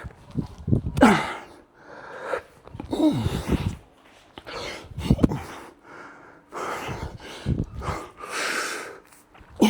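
A man breathing hard under exertion: loud, forced breaths and short grunting exhalations about once a second, some falling in pitch, as he works through a set of repetitions.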